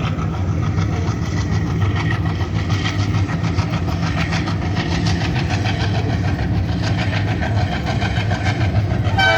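Indian Railways express train running over a steel rail bridge: a steady heavy rumble with constant wheel clatter over the rails. The train's horn starts sounding at the very end.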